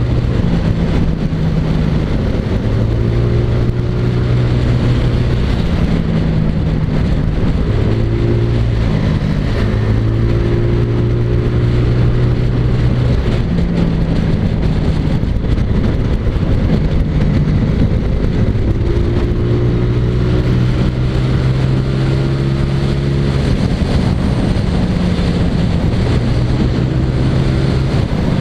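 Honda Vario scooter's single-cylinder engine pulling hard at speed through its CVT, with a rush of wind. The engine note holds steady for a few seconds at a time, edging up, then falls away, several times over, as the throttle is opened and rolled off.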